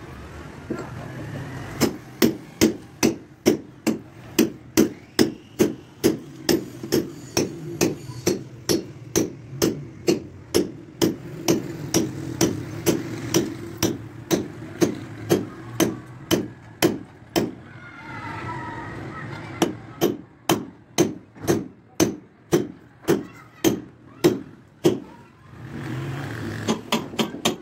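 Hammer blows struck in a steady rhythm, about three a second. They break off for about two seconds two-thirds of the way through, then resume.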